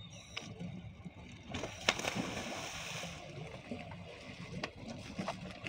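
A scuba diver entering the sea off a boat's stern: a splash about two seconds in, followed by about a second of rushing, churning water.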